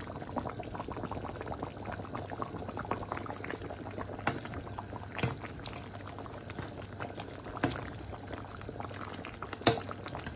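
A pot of thick bitter leaf soup with assorted meats boiling hard, a steady dense bubbling with a few sharper pops now and then.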